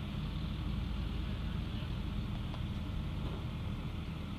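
Steady low rumble of MRAP armored trucks' diesel engines as they drive, with a faint hiss over it.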